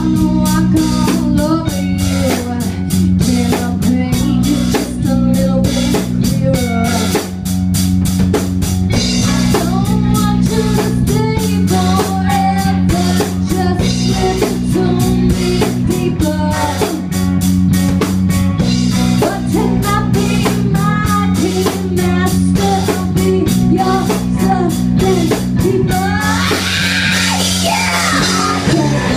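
Live punk rock band playing: electric guitar, bass guitar and a drum kit hammering a fast, dense beat, with a woman singing over it. Near the end the cymbals and guitar get brighter and louder.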